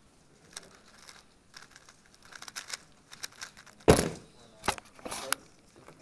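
3x3 speedcube being turned fast, a quick run of light plastic clicks, then a loud thump about four seconds in as the cube is set down and the hands hit the timer pads to stop the solve, with two softer knocks after it.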